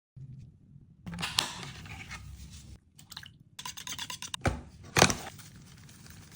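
Kitchen food-preparation noises: scraping and crunching handling sounds in short edited bits, with a sharp knock about four and a half seconds in and a louder sharp hit about five seconds in.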